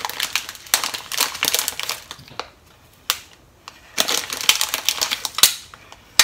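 Plastic resealable bag of shredded nori seaweed crinkling as fingers reach in and pull out pinches: two spells of dense crackling, with a sharp click near the end.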